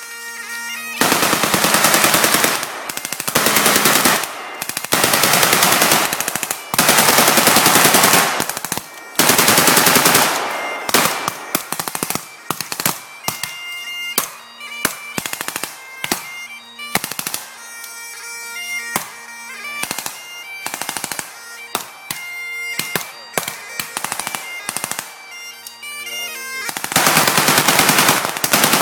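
Bagpipes playing, a steady drone under the melody, mixed with small-arms fire. The firing comes in long dense automatic bursts for roughly the first ten seconds and again near the end, with scattered single shots in between.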